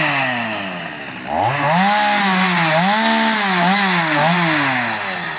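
Stihl MS 250 two-stroke chainsaw with a short bar cutting a thick log: the engine drops back over the first second, then revs up sharply and holds high with several small dips in pitch as it works through the wood, easing off near the end.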